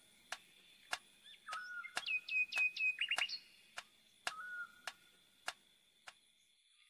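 Bird chirps: a short hooked chirp repeats every few seconds, with a quick flurry of higher, falling chirps about two to three seconds in. Over them runs a sharp tick about every half second, and a faint steady high tone sits underneath.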